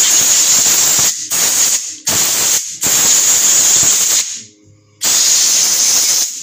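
Compressed air blowing dust off a carburettor in five bursts of loud hissing, each cut off abruptly; the longest lasts about a second and a half.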